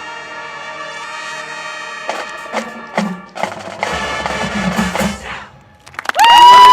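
High school marching band playing its closing passage: a held brass chord, then sharp percussion hits and a low drum rumble, and about six seconds in a very loud sustained final note begins.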